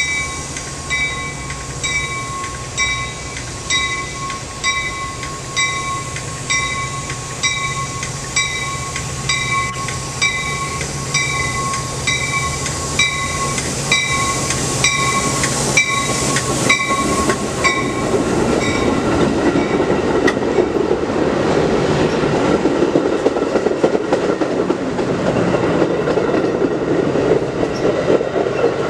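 Metra bi-level commuter train running in past the platform, cab car first. A warning bell rings about once a second and stops about two-thirds of the way through. Then the rumble and clatter of the coaches' wheels on the rails grows louder as the cars pass close by.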